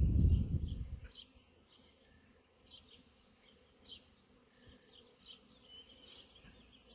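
A swarm of honey bees in flight, their faint steady hum around a swarm box, with short high bird chirps over it. A loud low rumble fills the first second, then fades.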